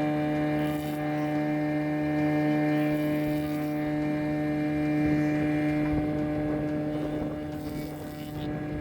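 Industrial surface planer running: a steady, even machine hum.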